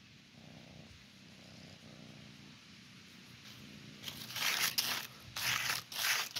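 Dry fallen leaf crackling and crinkling in several short bursts as a kitten bites at it and pounces, starting about four seconds in.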